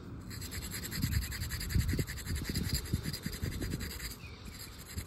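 Plumber's mesh sand cloth scratching against the rim of a copper fitting in quick back-and-forth strokes, cleaning the copper for soldering.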